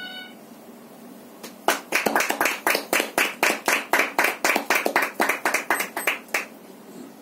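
A small audience clapping in brisk, even claps, about five a second, for several seconds. A held note of music dies away just before.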